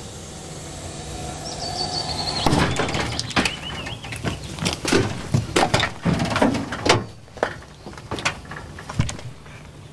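A series of knocks, clicks and rattles as the cab door of a homemade machine is handled, starting about two and a half seconds in, over a steady low hum.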